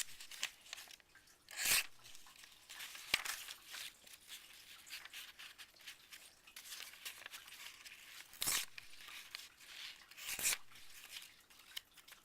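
Freshly sharpened knife blade slicing through a sheet of paper to test its edge: paper rustling and tearing, with four short, sharp crackles spread through the stretch.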